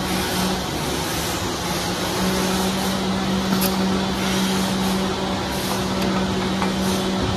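Small single-cylinder petrol engine of a garden power tool running steadily at high speed under test, a flat, even tone with a busy mechanical noise around it. A few sharp metallic clicks from parts being handled.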